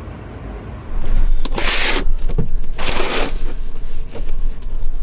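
Blackout curtain being pulled across a camper van window, sliding along its track in two swishes about a second apart.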